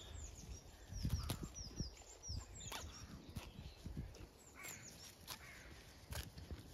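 Pasture ambience: small birds chirping in quick, short falling notes, with scattered soft clicks and a few brief low rumbles, the strongest about a second in.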